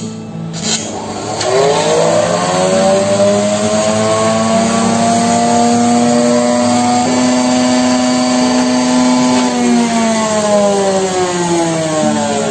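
Electric motor of a benchtop laboratory mixer switched on: it spins up over about a second into a steady whine, runs, then winds down from about ten seconds in.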